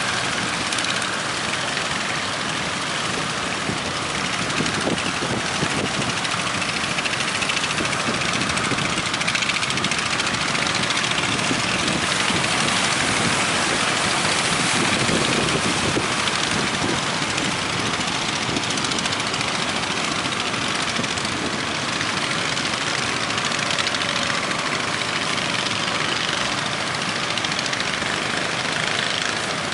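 Fishing boat engine running steadily under a constant rush of strong wind and waves.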